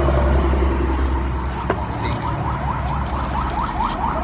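A steady low engine rumble, with one sharp click and then, about halfway through, a fast repeating rising chirp of about five a second, like an electronic alarm.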